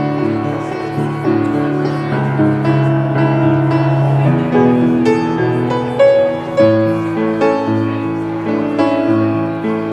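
Instrumental keyboard music, most likely piano, playing slow chords that are each held for a second or two.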